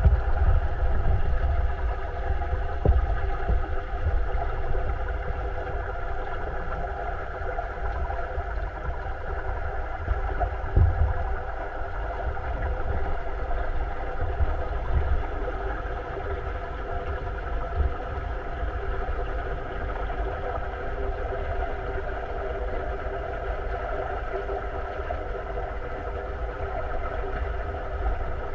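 Steady mechanical hum of a large aquarium's pumps and filtration, heard underwater through a waterproof camera, with several steady tones over a low rumble. Low thuds come and go, strongest near the start and about eleven seconds in.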